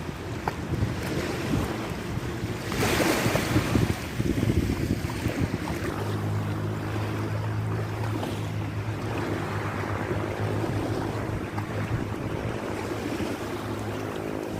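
Water noise with wind buffeting the microphone, and a steady low hum joining about six seconds in.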